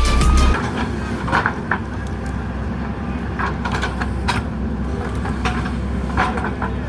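JCB 3DX Super backhoe loader's diesel engine running steadily under work, with occasional sharp metallic clanks from the digging gear. A music track cuts off about half a second in.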